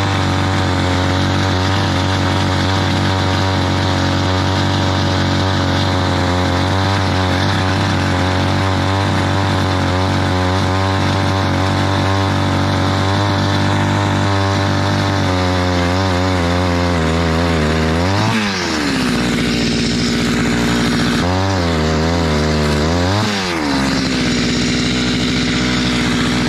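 Gas-powered ice auger engine running steadily under load while its bit drills down through lake ice. In the last third it revs up twice and drops back to a lighter idle as the bit is worked free and lifted out of the finished hole.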